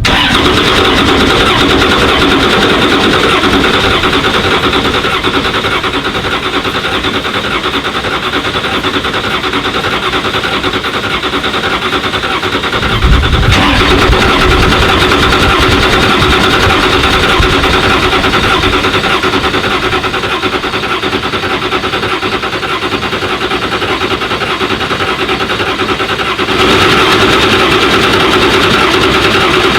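A 2017 Ford GT's 3.5-litre EcoBoost V6 being cranked on its starter at length without catching. The steady buzz grows louder about 13 seconds in and again near the end. The mechanic put the failure to start down to the spark plugs.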